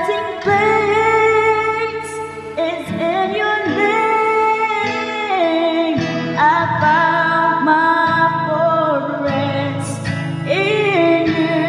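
A woman singing a slow worship song in long, held notes over a steady instrumental backing.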